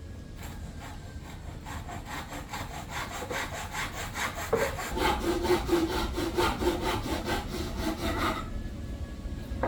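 Hand saw cutting through wood in steady, even back-and-forth strokes that grow louder about halfway through and stop near the end.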